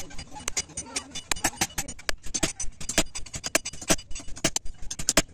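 Hand hammer striking a red-hot billhook (aruval) blade on a small anvil during forging: a quick, slightly irregular run of sharp metallic blows, several a second.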